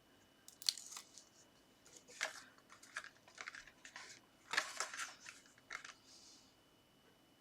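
Cardstock being handled and pressed together: a series of short, faint papery rustles and scrapes, the loudest cluster a little past the middle.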